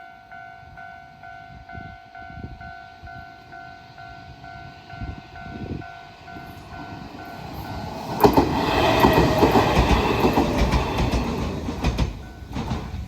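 Japanese level-crossing alarm ringing in a regular two-tone pulse as an Enshu Railway electric train approaches. About eight seconds in, the train passes loudly over the crossing for roughly four seconds, its wheels clicking over the rail joints, then fades.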